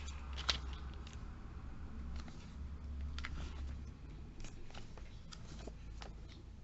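Pages of a glossy paper catalogue being flipped by hand: scattered light flicks and rustles, the sharpest about half a second in, over a low steady hum.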